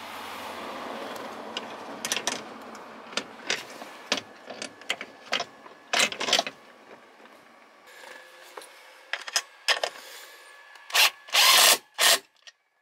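Plastic-and-metal knee airbag module knocking and clattering as it is worked into place under the dashboard, then a cordless power driver runs in two short bursts near the end, tightening a retaining nut.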